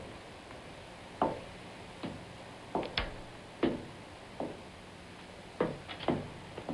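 A series of about ten sharp knocks or thuds, irregularly spaced about half a second to a second apart.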